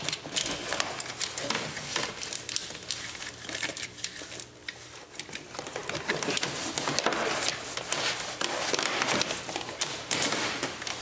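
Wiring harness being pulled through a snowmobile's plastic dash fairing: irregular rustling and scraping with many small clicks as the cable and its taped connectors drag against plastic, busier in the second half.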